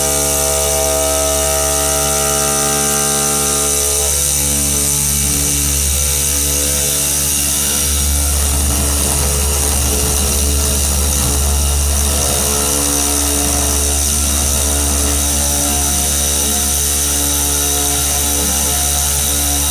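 A CNC router's 12 kW water-cooled spindle cutting a mould block under coolant spray: a loud, steady machining whine with several tones over the noise of the cut. The tones shift about four seconds in, and a deeper hum grows from about eight seconds.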